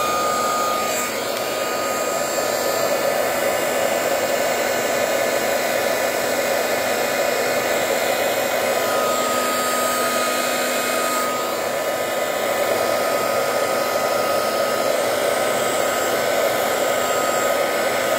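Handheld craft heat tool (embossing heat gun) running steadily, its fan blowing air with a thin whine that fades about a second in and comes back about halfway through. It is drying and pushing alcohol ink on paper.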